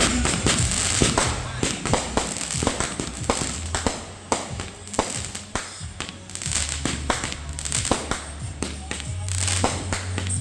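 Fireworks going off in a rapid, irregular string of sharp pops and crackles, several a second, with music playing underneath.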